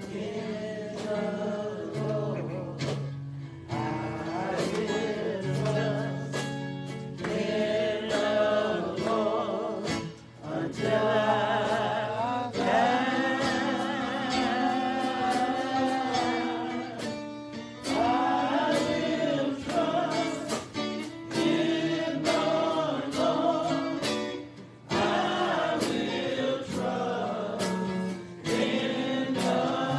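Gospel singing by a choir with instrumental accompaniment, an invitational hymn sung in phrases with short breaks between them.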